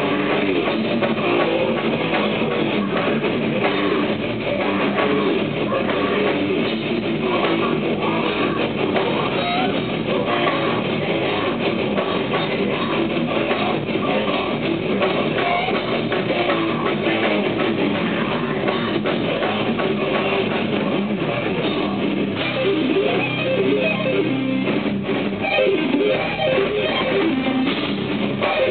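Heavy metal band playing live, with distorted electric guitars, bass, drum kit and shouted vocals.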